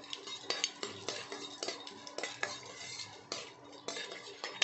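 Steel ladle stirring a tempering of mustard seeds, urad dal and curry leaves in oil in a stainless steel kadai, clinking and scraping against the pan in quick irregular strokes.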